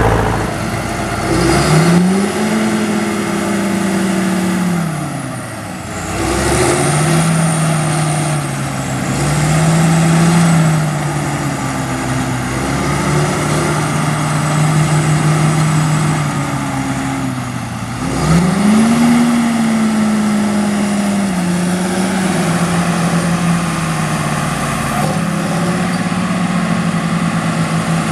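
A heavy farm machine's engine at harvest work. It revs up a second or two in and drops back around six seconds, runs steadily with small rises and falls in speed, then revs up sharply again about eighteen seconds in and settles.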